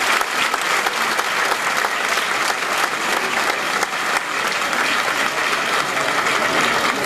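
Crowd applauding, many hands clapping at once in a steady, even round.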